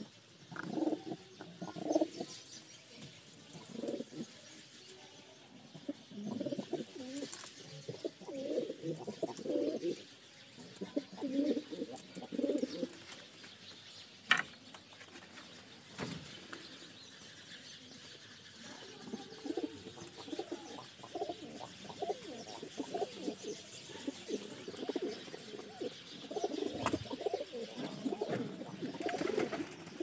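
Many domestic pigeons cooing, their low coos overlapping in repeated bouts. A single sharp click sounds about halfway through.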